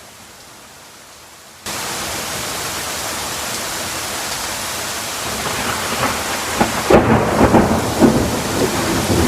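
Heavy rain, a steady hiss that cuts in suddenly about a second and a half in, joined near the end by rumbling thunder with crackling peaks.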